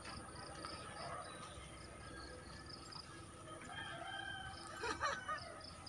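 A rooster crowing once, about four seconds in, over a faint, regular high chirping that repeats a few times a second.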